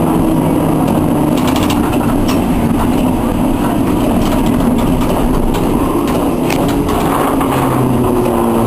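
Historic tram running along street track: a steady rumble of wheels on rails under motor and gear hum that shifts up and down in pitch, with a few brief clicks about a second and a half in.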